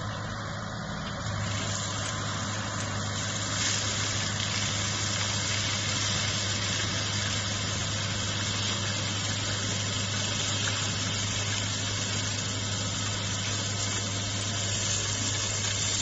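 Doosan mini excavator's diesel engine running steadily, driving a hydraulic flail mower head that is cutting through tall reeds. A low hum strengthens about a second in, over a constant hiss.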